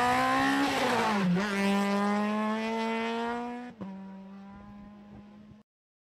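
Citroën C2 rally car engine at high revs, its pitch climbing with a brief dip about a second in, then climbing again. Near four seconds it gives way to a quieter, more distant rally engine holding a steady note that fades and cuts off about half a second before the end.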